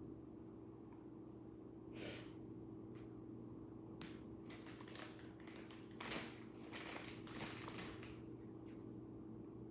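Scattered short rustling and scraping noises of hands handling clay and materials at a table, clustered in the middle of the stretch, over a steady low hum.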